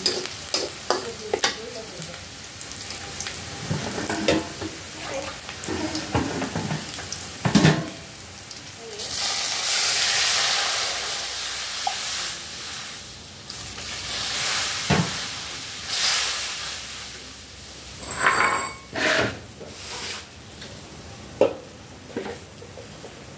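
A metal spatula scrapes and taps against a steel wok as vegetables stir-fry with a light sizzle. About nine seconds in comes a loud sizzling hiss as liquid goes into the hot wok, followed by more hissing bursts, spatula clatter and a quieter steady simmer near the end.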